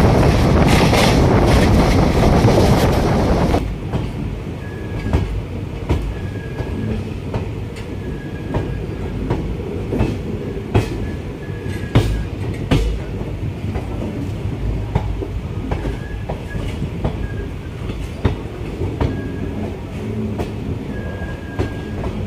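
Passenger express train running, heard from on board. A loud rush of wind cuts off about three and a half seconds in. After that come a steady low rumble of the coaches, sharp clicks of the wheels over rail joints, and short, faint wheel squeals that recur.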